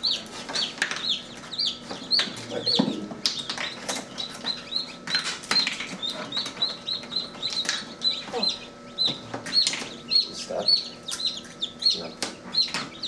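Newly hatched Light Sussex and Marans chicks peeping without pause, several short, high, downward peeps a second from the group. Sharp clicks come in among them as eggs and eggshells are handled in the incubator tray.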